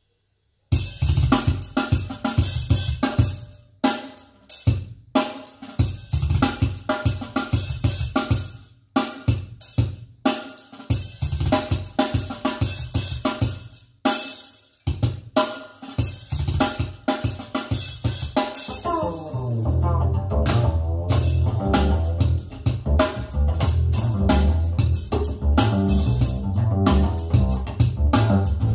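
A recorded drum-kit track played back over a pair of small DIY speakers with Tektonic BMR drivers: kick, snare and hi-hat start suddenly under a second in, with brief breaks in the beat. A bass line and guitar join about two-thirds of the way through.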